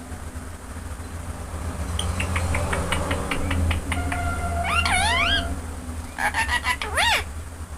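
Ringneck parrot calling: a quick run of clicks about two seconds in, then whistled notes that glide up and down over a held tone, and sharp rising-and-falling calls near the end. A steady low hum runs underneath.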